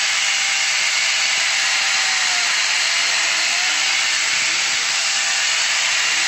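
Electric angle grinder converted into a small chainsaw with a bar-and-chain attachment, running steadily while it cuts through thin branches; its motor pitch dips briefly a few times under load.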